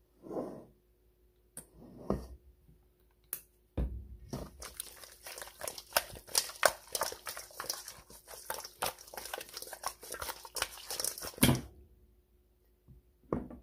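Hands tossing and rubbing mustard-coated raw quail pieces in a stainless steel bowl: a few short sounds at first, then a dense run of wet squelching and crackling from about four seconds in, stopping shortly before the end.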